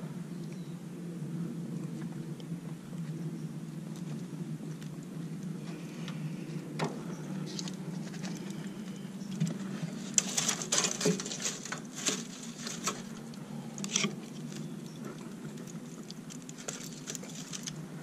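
Footsteps on concrete, then a run of knocks and clatter in the second half as an oak split is handled at an offset smoker's firebox, all over a steady low hum.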